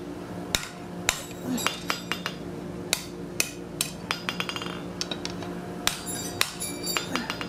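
Hot steel bar end being upset (jumped): the bar is rammed end-down again and again, giving about a dozen sharp metallic clanks at irregular spacing, some of them ringing, over a steady low hum.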